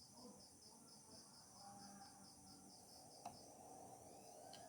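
Near silence, with a cricket chirping faintly in a steady, rapid pulse. Two faint clicks come about three seconds in and near the end.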